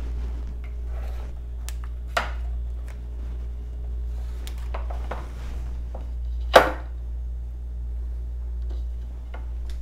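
Whiteboard marker and ruler tapping and knocking against a whiteboard, a few light taps and one sharp knock about two-thirds of the way through, over a steady low hum.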